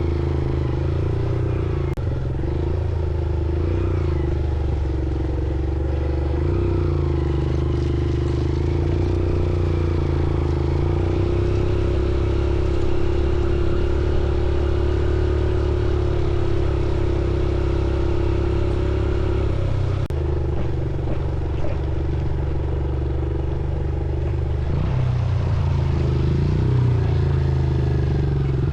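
Motorcycle engine running under way at fairly steady revs, its pitch rising and falling slightly with the throttle, with an occasional knock or click.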